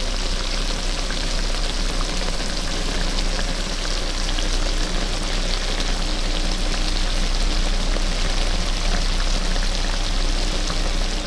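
Chicken pieces sizzling in a wok, bubbling in oil and the chicken's own released juices: a steady crackle of many small pops that stays even throughout.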